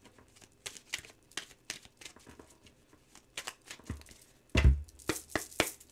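Tarot cards being shuffled by hand: a scattered run of soft card flicks and slaps, with a louder cluster and a dull thump about four and a half seconds in.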